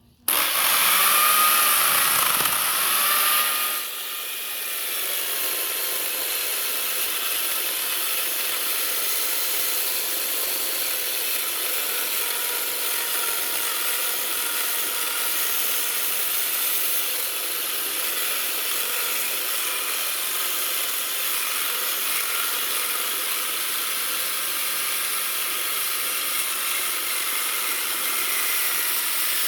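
Handheld power tool cutting into wood. It starts abruptly, is loudest for the first few seconds with its pitch wavering, then runs on steadily.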